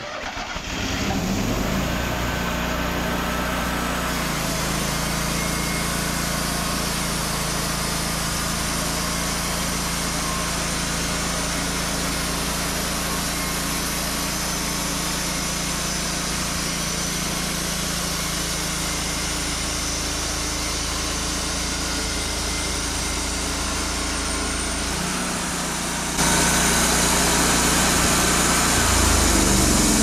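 Wood-Mizer LT40 band sawmill's engine starting at the outset and then running steadily, its pitch shifting once a few seconds in. About 26 seconds in it gets louder, with added hiss.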